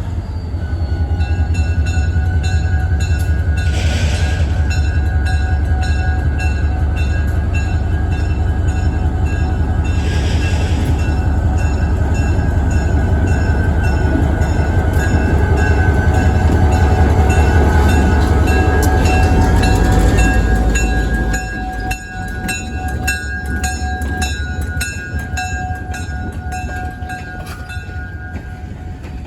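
A train running past close by: a heavy low rumble for about twenty seconds that drops off suddenly, then wheels clicking over rail joints, the clicks more distinct near the end.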